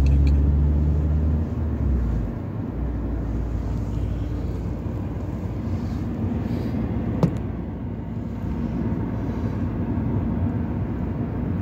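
Steady road and engine noise heard from inside a moving car's cabin, with a deep rumble for the first second or two that then eases. A single sharp click about seven seconds in.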